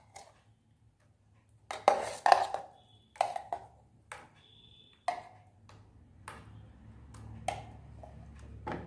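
Scattered knocks and clinks of kitchen utensils against the mixer jar as thick date paste is scraped out into a non-stick pan, with a short metallic ping twice.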